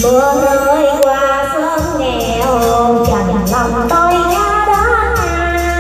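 A woman singing a Vietnamese song into a microphone over amplified backing music with a steady percussion beat.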